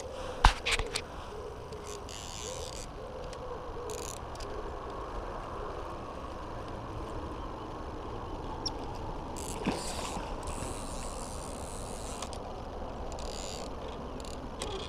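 Spinning reel being cranked to retrieve a lure, a steady mechanical whirr. A few sharp clicks come about half a second in, and a single one near ten seconds.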